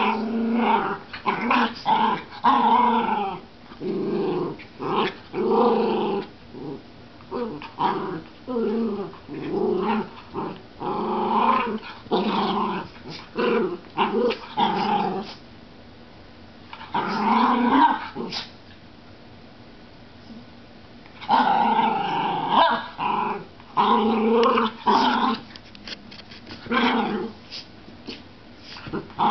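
Two Schnoodles play-wrestling, growling in repeated short bursts. These are play growls, not aggression. The growling pauses for a couple of seconds about two-thirds of the way through.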